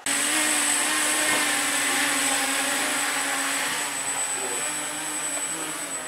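Motors and propellers of a home-built RC tricopter in a carbon-fibre sphere cage running with a steady whine as it lifts off and flies away, growing fainter from about four seconds in.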